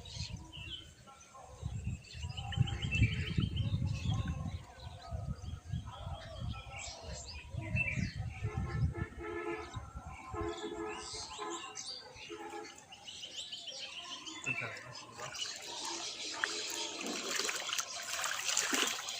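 Birds calling with repeated short chirps and trills, over low rumbling in the first half. From about fifteen seconds in, water splashes and trickles.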